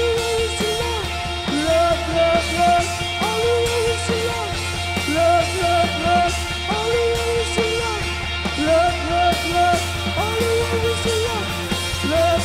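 Indie rock band playing live: electric guitars, bass and drums, with a male lead vocal singing a melodic phrase that repeats every second or two over the band.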